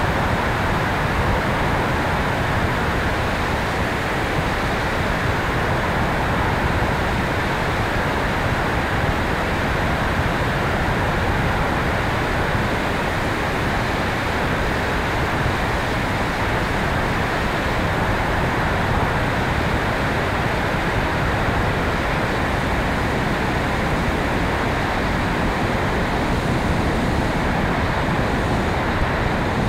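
Steady rush of air over the microphone of a tail-mounted camera on a radio-controlled electric airplane in flight: an even hiss and rumble with no clear motor tone.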